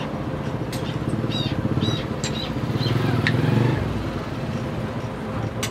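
A motor running steadily with a fast low pulse, growing louder about three and a half seconds in and then easing off, with a few faint chirps and clicks over it.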